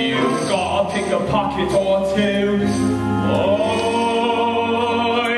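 Musical-theatre song: voices singing with instrumental accompaniment, with a long held note in the second half.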